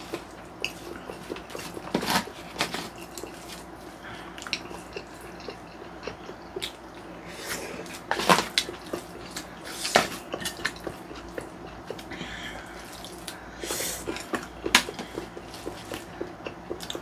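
Eating sounds: chopsticks and a wooden spoon clicking and scraping against plastic takeout trays, in scattered sharp clicks a second or two apart.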